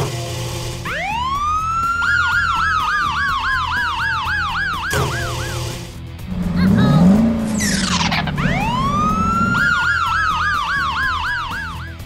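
Police siren wailing up in pitch, then switching to a fast warbling yelp that slowly falls; this happens twice, with a brief swooping sound between the two. A low music bed runs underneath.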